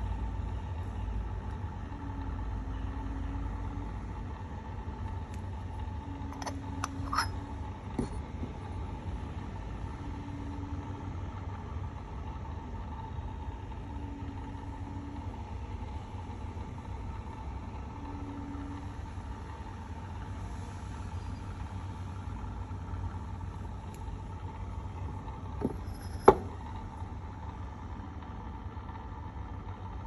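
A few light clicks and, near the end, one sharp clink with a brief ring, typical of the porcelain lid and box being knocked and set down on a table while they are handled, over a steady low background rumble.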